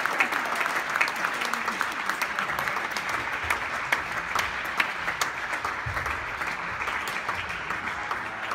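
Spectators applauding, a dense patter of many hands clapping that dies down near the end.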